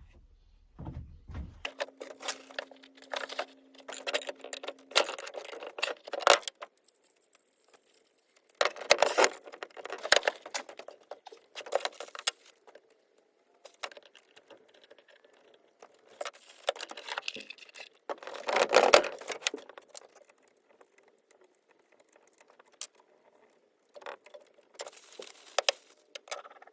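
Drill press parts and packaging being handled during unboxing: irregular clinks of small metal parts and rustling, coming in several bursts with pauses between them.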